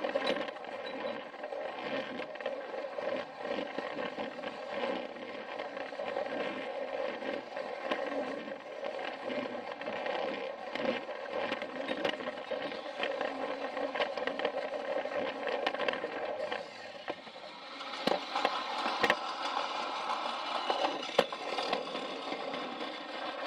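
Battery-powered Plarail toy train running on plastic track: a steady whine from its small motor and gears, with frequent clicks as the wheels cross the rail joints. About 17 seconds in the sound dips briefly, then comes back higher-pitched.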